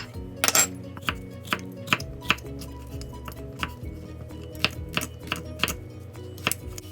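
Knife chopping vegetables on a cutting board: about ten sharp, irregularly spaced chops over steady background music.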